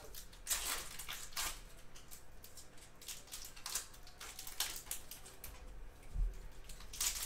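Foil wrapper of a baseball trading-card pack torn open, then the cards handled and slid between the fingers: a run of short crinkles, rustles and light clicks.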